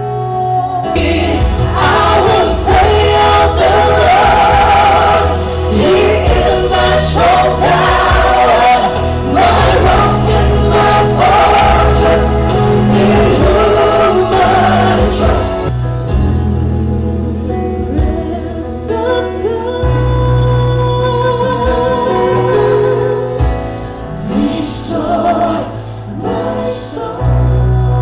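A mixed group of male and female singers performing a gospel song through microphones, with electronic keyboard accompaniment and steady bass notes. The singing is fuller for the first half, then thins out after about sixteen seconds.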